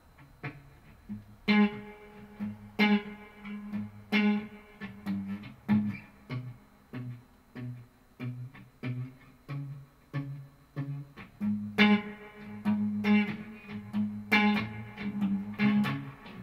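Electric guitar played without singing: a loud chord about a second and a half in, then a steady pattern of picked notes about two a second, with more loud struck chords near the end.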